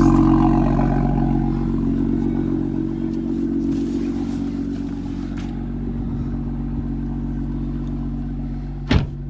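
BMW M2's turbocharged straight-six idling after its first start, growing quieter over the first few seconds and then running steadily. A single sharp click sounds near the end.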